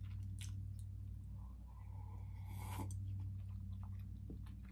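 Mouth noises of chewing a scone-like tea biscuit with clotted cream, small wet clicks scattered throughout, with a short slurping sip of hot milky tea from a glass mug a little under three seconds in, over a steady low hum.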